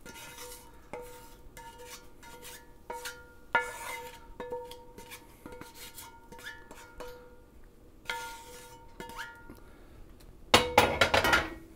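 Wooden spatula scraping a skillet of browned ground beef, onions and spices out into a pot of liquid: repeated knocks of metal cookware, several leaving a short metallic ring. A louder clatter and scrape comes near the end.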